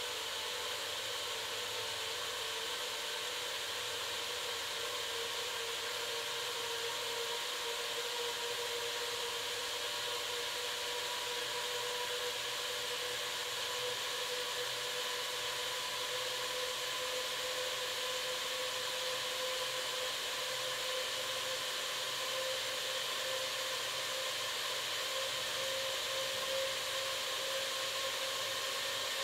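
Motorised rotating systems of a fluorescent-lamp light installation running with a steady whirring hum and hiss. The tone creeps slightly higher as the rotation builds speed.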